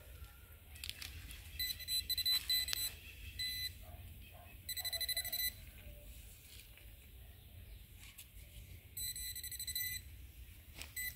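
Metal detector giving a high electronic beep in several short bursts, sounding off on metal near the coil as a target is dug out. A few scrapes and clicks of a hand digger in the soil come between the bursts.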